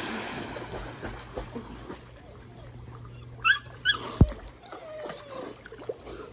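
Water splashing as a puppy drops into a swimming pool and paddles, then two short, high yips from a dog about three and a half seconds in, followed by a brief knock and a short falling whine.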